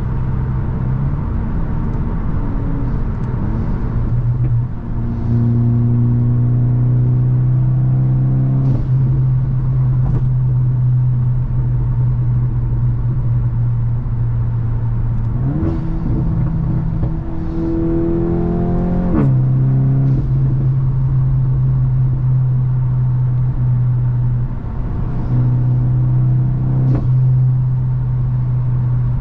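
Volkswagen Mk8 GTI's tuned turbocharged 2.0-litre four-cylinder with an aftermarket catback exhaust, droning steadily while driving. Three times the engine note rises under acceleration and then drops sharply at an upshift, with a short pop from the exhaust at the shift.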